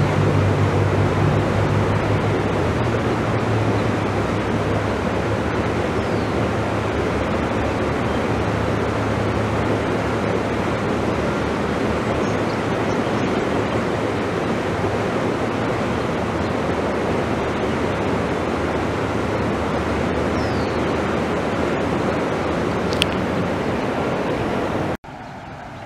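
Flash-flood water flowing across a road: a steady rushing noise, with a low vehicle engine hum that fades after the first few seconds. The rushing cuts off abruptly near the end.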